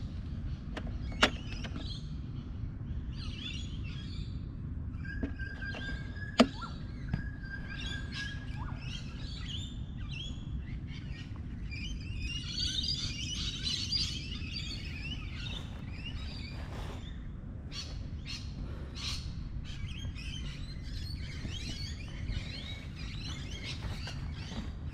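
Birds chirping and calling over a steady low outdoor rumble, with two sharp clicks, one about a second in and a louder one about six seconds in.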